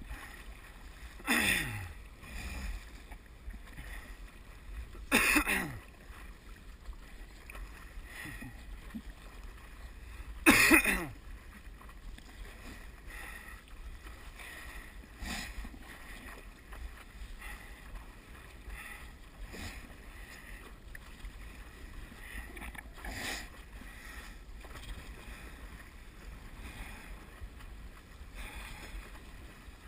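Stand-up paddle blade catching and pulling through the water: each stroke is a splash with a gurgle that falls in pitch. Three loud strokes come in the first eleven seconds, then softer ones every few seconds, over a low wind rumble on the microphone.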